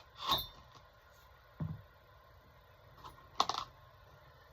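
Metal engine parts being handled during hand reassembly: a sharp clink, a dull knock, then another sharp clink.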